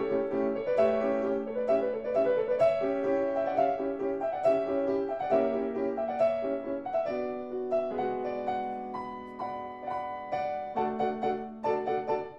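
Solo piano music, a lively run of quick repeated notes and chords.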